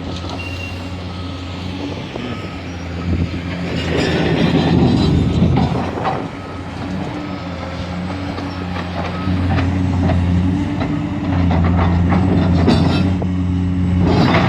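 Diesel excavator engine working under load, growing louder in surges as it strains, with irregular knocking, scraping and rattling as the bucket breaks up old concrete.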